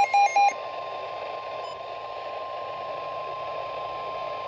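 NOAA Weather Radio's 1050 Hz warning alarm tone, one steady unbroken tone over radio hiss. In the first half second the last two of a rapid run of beeps, about four a second, sound over it.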